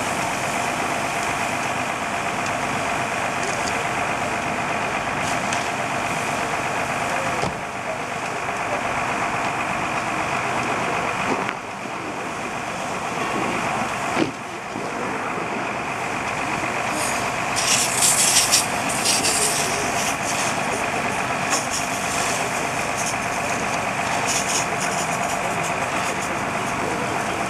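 Fire engine's motor running steadily, driving its pump to feed the hoses: a constant drone with steady whining tones. A spell of louder hissing water spray comes about two-thirds of the way through.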